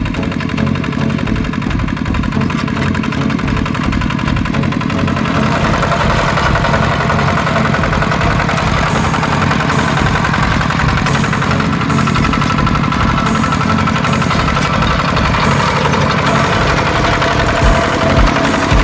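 Single-cylinder diesel engine of a Kubota walking tractor running steadily with a rapid chugging beat as it pulls a plough through the soil. A higher steady tone joins about five seconds in.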